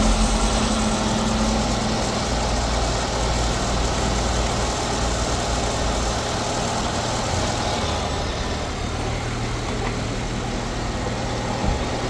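Nissan Altima's QR25 four-cylinder engine idling steadily, running again now that the ignition-coil wire shorting against the cam sensor bolt has been fixed and the blown fuse replaced. A light knock near the end.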